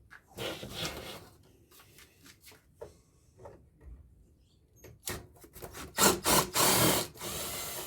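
Plastic and metal parts of an air-conditioner unit scraping and rubbing as they are worked apart by hand, with a few small knocks in the middle and a louder stretch of scraping near the end.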